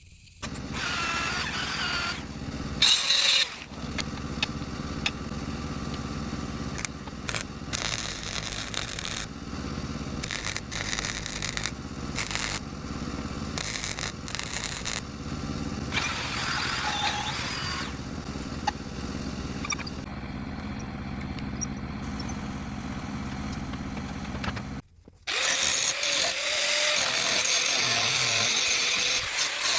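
A power tool running with noisy scraping strokes over its hum. After a brief break near the end it is louder and harsher.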